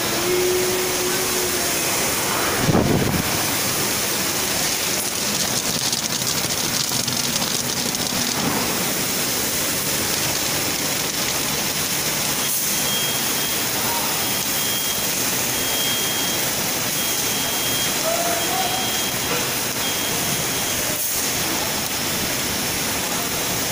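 Automatic popcorn processing line running: a steady, dense rushing noise from the popping kettles and conveyors. There is a knock about three seconds in, and a faint series of short high beeps in the middle.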